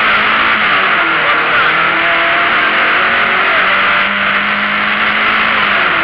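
Opel Ascona A rally car's engine running hard at speed, heard from inside the cabin, loud, under a dense hiss of road and wind noise. The engine pitch drops slightly about a second in and climbs again about four seconds in.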